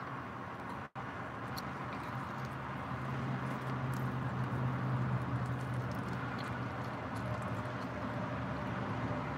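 A steady low hum from an unseen motor or traffic, swelling slightly through the middle, with a few faint clicks and smacks of someone chewing roasted chicken drumsticks. The sound cuts out completely for an instant about a second in.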